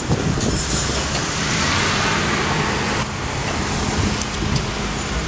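Street traffic: a car driving slowly past close by, its engine and tyre noise swelling to a peak about two seconds in, over a steady low hum from the line of slow-moving cars.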